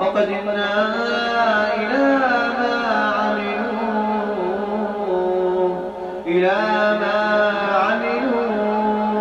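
Quran recitation in a slow, drawn-out melodic chant by a single voice, holding long notes that bend up and down, with a brief pause for breath about six seconds in.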